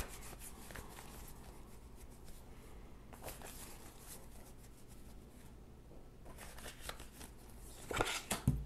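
A deck of tarot cards being shuffled by hand: faint, soft rustling with occasional card clicks. Near the end it grows louder, with sharper snaps as cards are drawn from the deck and laid down.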